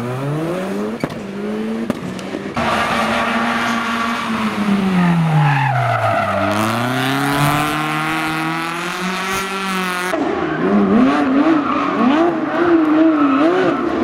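Rally car engines being driven hard in three quick cuts, each note rising and falling with the throttle, over the sound of tyres sliding on the tarmac. The first cut has a rising engine note. In the second a classic rally saloon revs down and back up as it slides. In the last, about ten seconds in, a Porsche 997 GT3 rally car's flat-six wavers in pitch as it is held sideways through a turn.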